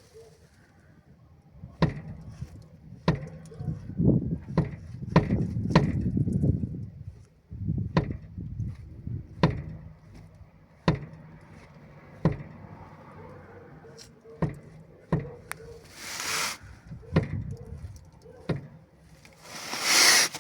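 Worn front ball joint on a Volkswagen Golf Mk2 knocking: sharp single knocks about every second and a half as the suspension is loaded and unloaded, with a stretch of low rumbling in the first third. Two short loud rushing noises come near the end.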